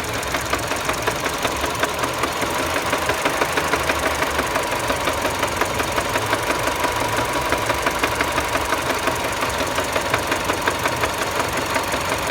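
Mini Cooper engine running with a rapid, regular knock that beats several times a second over its steady note.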